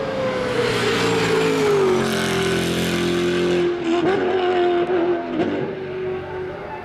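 BMW Z4 GT3's 4.4-litre naturally aspirated V8 racing engine running hard. Its note falls in pitch over the first two seconds, then holds steady with a few sharp cracks between about four and five and a half seconds in, and fades near the end.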